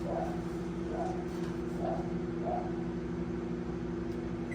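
Galanz microwave oven running with a steady low hum, which cuts off suddenly near the end with a short beep.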